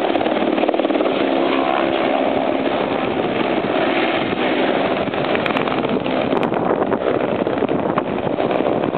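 Eurocopter Écureuil helicopter's turbine and rotor running at takeoff power as it lifts off and climbs away, a steady, loud mechanical noise.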